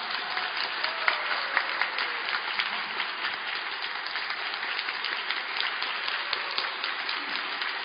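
Audience applauding, a steady dense patter of many hands clapping right after the music ends.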